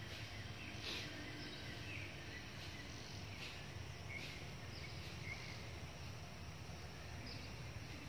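Outdoor ambience: a steady low background hum with faint, short high chirps now and then.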